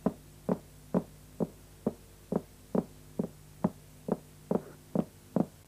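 A steady, even beat of dull knocks, a little more than two a second, over a faint low hum.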